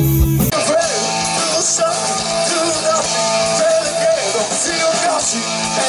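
Rock band playing with a singer. About half a second in, the sound cuts abruptly to another stretch of music with much less bass.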